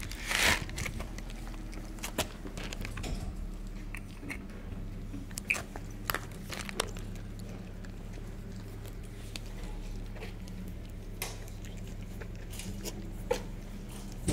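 A tabby cat crunching dry kibble: irregular short crunches and clicks as it bites and chews the pellets.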